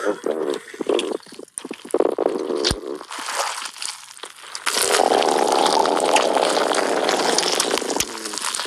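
Wet mouth and throat sounds from a person: short gurgles, swallows and clicks, then a long, steady wet rushing sound from about five seconds in.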